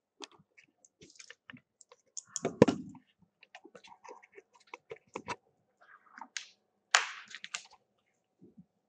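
Scattered small clicks, taps and scrapes of hands fitting a DC power-supply cable to an opened phone's board, with a louder knock about two and a half seconds in and a short scraping rush about seven seconds in.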